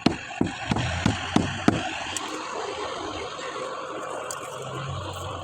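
A quick run of six sharp knocks, about three a second, then a steady low hum under background noise.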